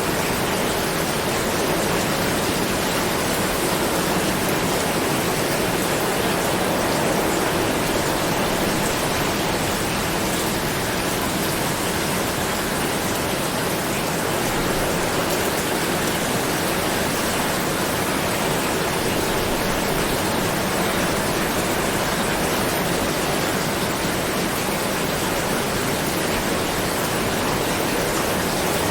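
Steady heavy rain, an even hiss with no distinct drops standing out and no change in loudness.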